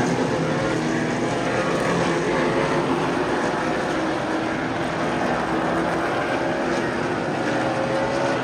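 Super late model race cars' V8 engines running around the track together: a steady drone with several engine tones, their pitch drifting slightly up and down.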